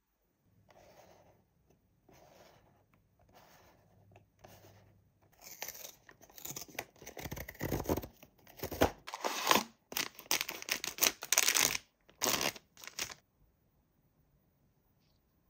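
Toy packaging being torn open: faint rustling at first, then a run of loud tearing and rustling that stops about thirteen seconds in.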